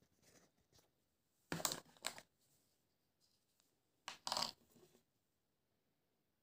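Clear plastic wrapping crinkling as it is handled, in two short bursts: one about a second and a half in, another around four seconds in.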